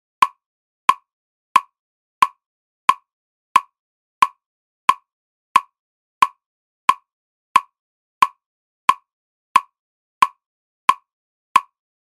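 Electronic metronome clicking steadily, about one and a half clicks a second, as a count track for practising a dance step.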